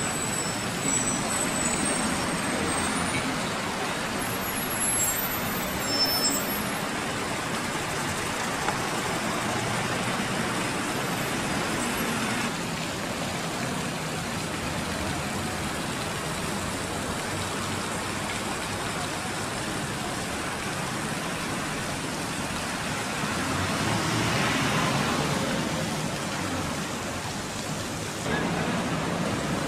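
Steady city street traffic noise from cars and buses, with a louder swell about three-quarters of the way through, as of a vehicle passing.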